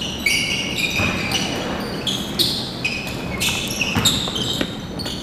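Sneakers squeaking on a hardwood basketball court several times, short high squeaks, with a basketball bouncing on the floor during play, echoing in a large gym.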